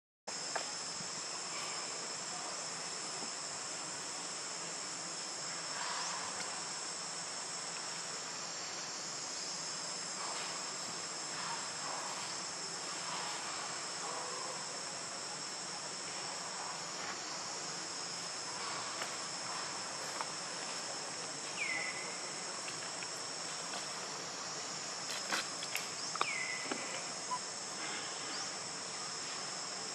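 Steady, high-pitched chorus of insects, with a few short falling chirps in the second half.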